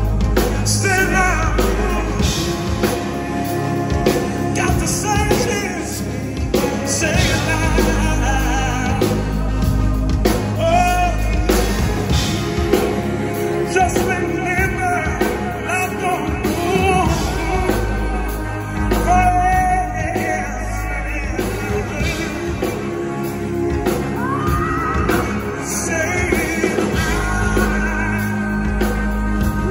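Live pop-rock band playing, with male voices singing over drums, electric guitar and keyboards.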